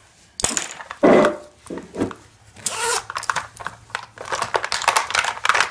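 Zipper on a fabric makeup pouch being pulled open, then the things inside it rustled and clicked about, a run of quick scratchy rasps.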